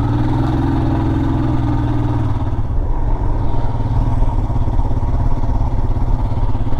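Motorcycle engine running under way. The steady engine note changes about two seconds in and turns more uneven after that.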